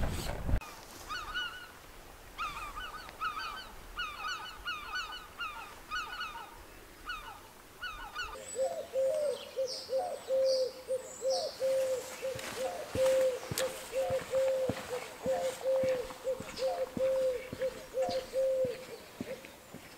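Birds calling: groups of short, sharp, higher calls for the first eight seconds or so, then a steady run of lower honking notes about two a second. Footsteps on a paved lane can be heard through the second half.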